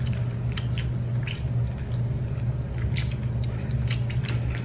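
Eating sounds close to the microphone: chewing and mouth smacks with scattered light clicks, over a steady low hum.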